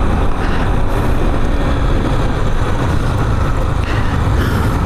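Steady wind rush over the microphone of a moving motorcycle, with the Yamaha Factor 150's single-cylinder four-stroke engine running underneath.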